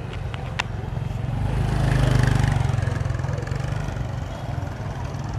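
A motor vehicle passing close by on the street, its engine hum rising to a peak about two seconds in and then fading away. A couple of short clicks about half a second in.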